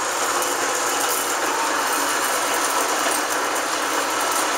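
1981 Dainichi SHB gap-bed engine lathe running under power and taking a cut, its geared headstock making a steady, even mechanical noise.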